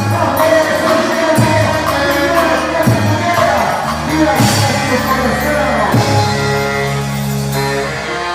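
Music with singing over a low drum beat that lands about every second and a half.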